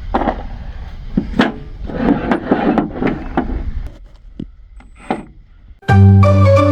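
Scattered knocks and clicks through the first few seconds. About six seconds in, loud music with held notes starts and is the loudest sound.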